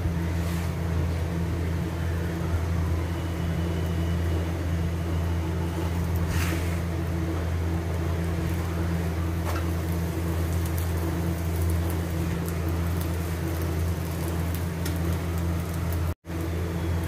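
Steady low hum of a motor or appliance running without change, with a light scrape of a metal spatula on the griddle about six seconds in. The sound cuts out for an instant near the end.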